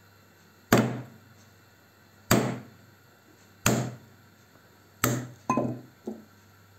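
Meat tenderizer mallet hitting a walnut on a wooden cutting board, cracking the shell: four hard knocks about a second and a half apart, then two lighter, quicker knocks near the end as the broken shell is tapped apart.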